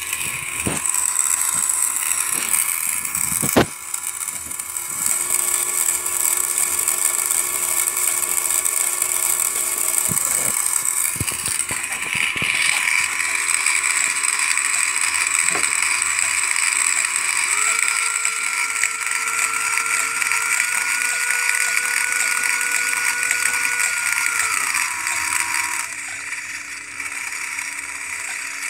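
Small electric motor of a model truck's radio-controlled windscreen wiper mechanism whirring as it drives the wiper arm, with a few sharp clicks, the loudest a few seconds in. Past the middle a steadier whine rises in pitch, holds for several seconds and then drops away.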